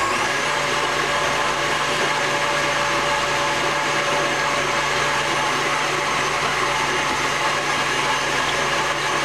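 KitchenAid stand mixer running steadily, its motor and beater churning chocolate pudding mix with milk in the steel bowl. Its pitch shifts once right at the start, as at a speed change, then holds steady.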